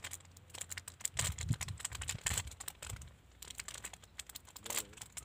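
Paper food wrapper crinkling and rustling as it is handled, in irregular short crackles with a few soft low thumps in the first half.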